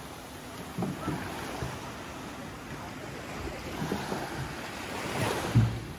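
Small surf washing in over a sandy beach, with one wave swelling and breaking about five seconds in.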